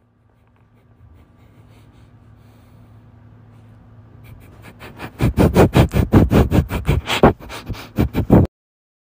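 A dog sniffing hard right at the microphone: rapid, loud sniffs about six a second, starting about five seconds in and cutting off suddenly, after a faint low hum.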